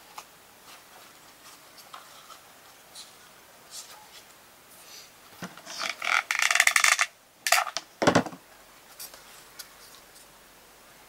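Close handling noise at a craft table: about a second and a half of loud crinkly rustling as pieces are handled, then a sharp click and a knock as something is set down on the table about eight seconds in.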